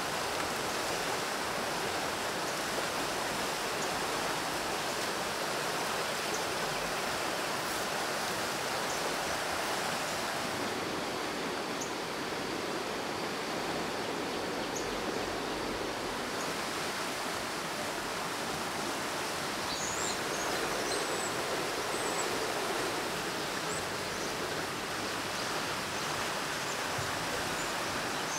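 Steady rushing of a forest stream, with a few faint high chirps about two-thirds of the way through.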